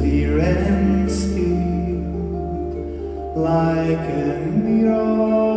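Live music: a pedal harp playing plucked notes over a long, steady low double-bass note. A male voice comes in with a held sung note about three and a half seconds in.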